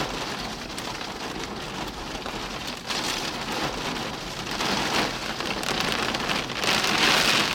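Heavy rain beating on a car during a tornadic thunderstorm, a steady hiss that swells several times, loudest near the end.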